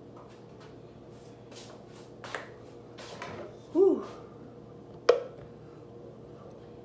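Handling noises, a few light knocks and clicks, as a person carries and holds an insulated tumbler of hot coffee, then a short voiced 'mm' falling in pitch about four seconds in, and a single sharp click about a second later.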